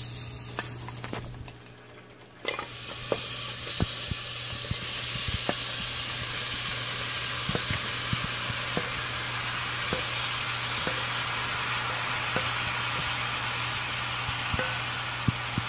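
Seasoned beef kidney pieces with sliced onion and peppers frying in hot butter in a pot. A steady sizzle sets in suddenly about two and a half seconds in, with scattered pops and crackles throughout.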